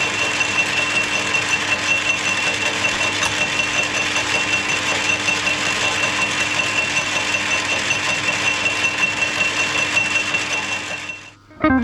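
1940s Qualos metal lathe running steadily with its power feed engaged, turning aluminium: an even mechanical whir with a constant high-pitched whine on top. The sound stops near the end.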